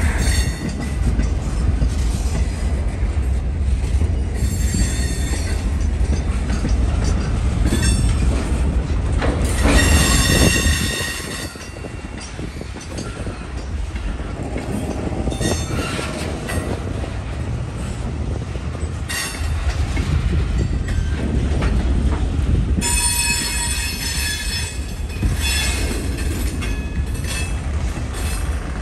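Freight cars rolling slowly along the track, wheels rumbling on the rails, with high-pitched wheel squeal breaking out several times, the longest spells about ten seconds in and again from about twenty-three to twenty-six seconds. The low rumble eases a little about eleven seconds in and picks up again about nineteen seconds in.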